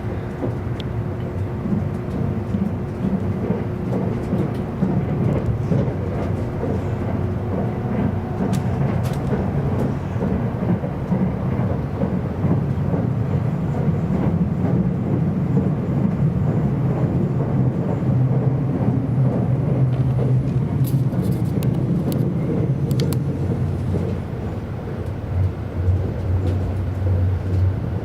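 Interior running noise of an E259 series Narita Express electric train travelling at speed: a steady low rumble of wheels on rail with a faint motor tone, and a few light clicks and rattles partway through.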